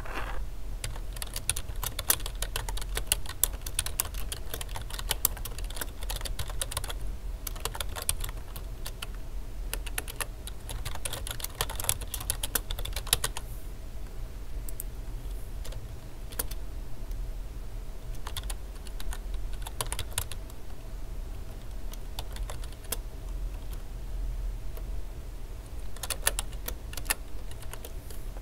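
Typing on a computer keyboard: quick runs of keystrokes, dense through the first half, then sparser with pauses and a short run near the end, over a steady low hum.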